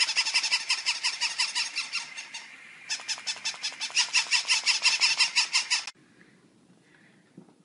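Battery-operated plush toy puppies yapping in a rapid, high-pitched, mechanical-sounding stream of about seven yaps a second, cutting off abruptly about six seconds in; after that only faint room tone with a couple of light clicks.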